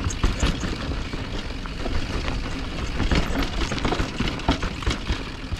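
Rushing noise, like wind over the microphone, with frequent knocks and rattles during a fast ride.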